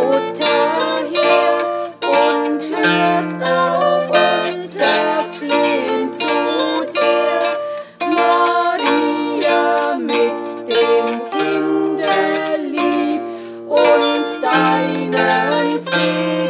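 Table zither played solo: a plucked melody with chords over ringing bass notes.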